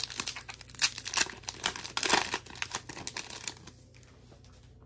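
A Disney Lorcana booster pack's shiny wrapper being torn open and crinkled by hand, a dense run of crackling and rustling that stops about three and a half seconds in.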